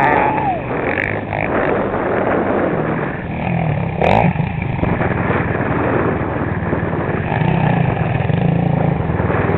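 Quad ATV engines running and revving up in stretches, with a short knock about four seconds in.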